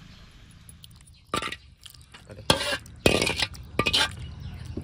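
Metal ladle clinking and scraping against the pot and a ceramic bowl as thin curry is ladled out. There are four or so sharp clinks over a few seconds, with some splashing of the liquid.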